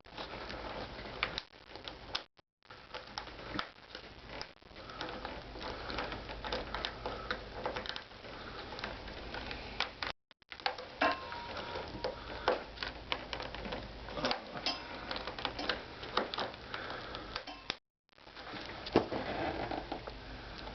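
Dense, irregular small clicks and ticks of a Targus Defcon CL combination cable lock being picked open while locked into a laptop's security slot.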